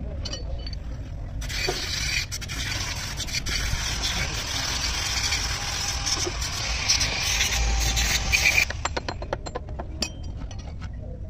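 A steady hiss lasting about seven seconds, then a run of light metallic clicks and taps as a steel timing gear is handled and set onto the front of a diesel engine block.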